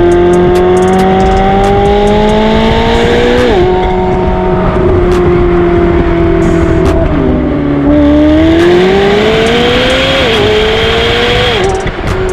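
McLaren 720S twin-turbo V8 through a catback sports exhaust, accelerating: the revs climb and drop sharply at gear changes, about four times.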